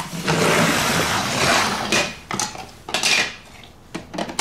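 Plastic LEGO bricks clattering and clicking as they are handled and pressed together: a continuous rattle for about the first two seconds, then a few separate clicks.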